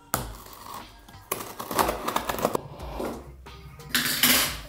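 Small scissors cutting open a parcel's packaging, with crackling, tearing rustles in three bursts: a short one at the start, a longer crackling one in the middle, and a loud tearing hiss near the end.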